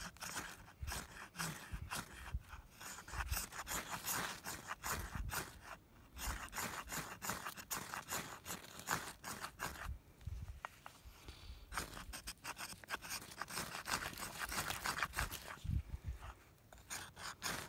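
A ferro rod scraped hard and fast with a striker, over and over in runs, throwing sparks to light fire tinder. There is a short pause about six seconds in and a quieter stretch around ten seconds in.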